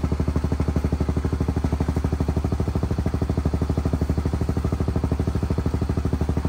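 Small engine running at a steady speed with an even pulsing beat, about ten beats a second.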